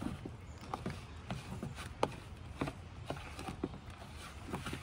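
A utensil scraping and clicking against a bowl as a dry, crumbly oat-and-sugar topping is stirred, with quick irregular light clicks.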